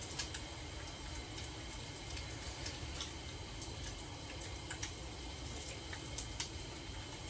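Fish frying in a pan of hot oil: a steady sizzle with small pops and crackles scattered through it.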